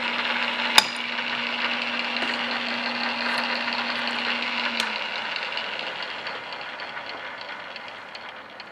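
Drill press running, a steady motor hum under a whirring rattle. About five seconds in the hum cuts off and the whirring slowly fades as the machine runs down. One sharp click about a second in.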